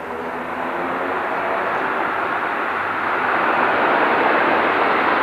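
Dash 8 Q400's two PW150A turboprops and six-bladed propellers spooling up toward takeoff power, growing steadily louder. A low propeller drone at the start gives way to a rising rushing noise as power builds.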